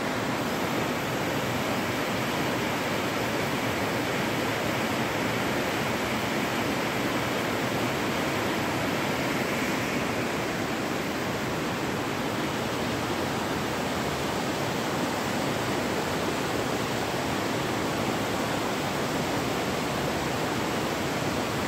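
Bhagirathi river rushing over rocky rapids, a steady, even rush of water noise.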